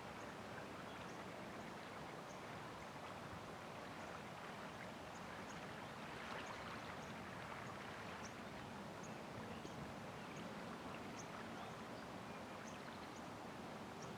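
Steady outdoor background noise, an even rush, with short faint high chirps scattered through it.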